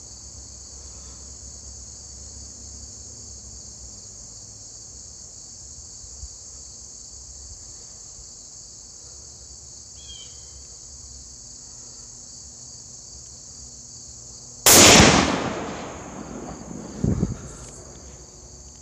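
A single .270 Winchester rifle shot about fifteen seconds in, its report dying away over a second or two, then a short knock a couple of seconds later. Insects buzz steadily under it all.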